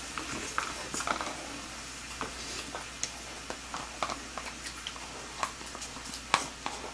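A spoon clicking and scraping against a small bowl, with soft eating and slurping sounds close to the microphone, scattered irregular ticks over a faint hiss, and a sharper click about six seconds in.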